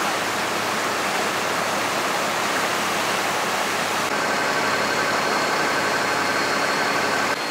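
Brown floodwater of a swollen river rushing and churning past tree trunks, a steady loud rushing. About four seconds in the sound changes to a slightly duller steady noise with a faint high, steady whine.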